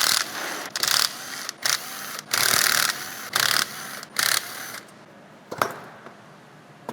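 A tool working the bolts of a car air-conditioning compressor being taken apart, running in about nine short bursts over the first five seconds, then a single sharp click.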